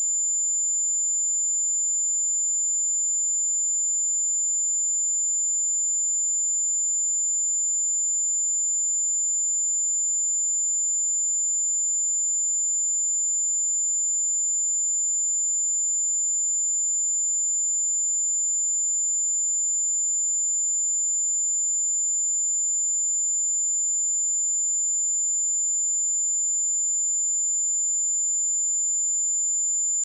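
A steady 7115 Hz sine-wave test tone: a single pure high-pitched tone held at constant level, with no other sound.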